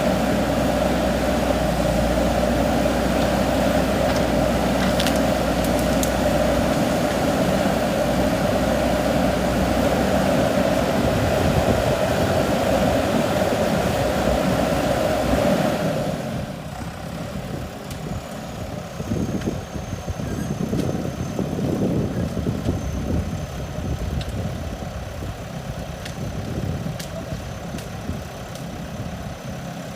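JCB 3DX backhoe loader's diesel engine running steadily. About halfway through, the sound drops in level and turns to a lower, uneven rumble.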